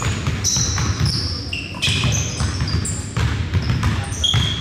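Basketball being dribbled on a hardwood gym floor, bouncing repeatedly, with many short, high sneaker squeaks from players moving on the floor.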